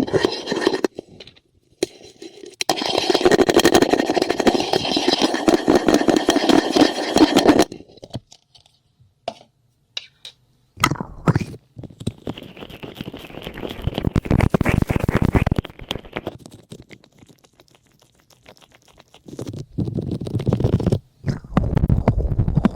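Close-miked scratching and rubbing on a microphone, the ear-cleaning and massage sounds of an ASMR session. They come in three long crackly bursts with short quiet gaps between them.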